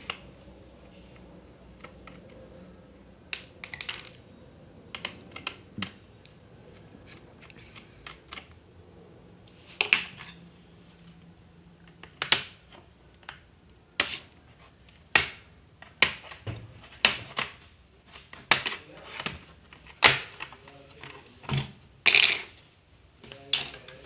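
Sharp plastic clicks and snaps, irregular and about one a second after the first few seconds, as the snap-fit clips of a Lenovo IdeaPad laptop's plastic case are pried apart and the panel is worked loose.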